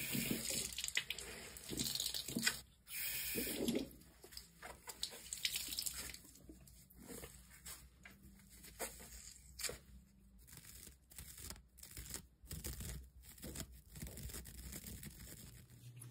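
Tap water running over a wet makeup sponge for the first few seconds, then the soapy sponge squeezed by hand, giving repeated short wet squelches and crackles of suds.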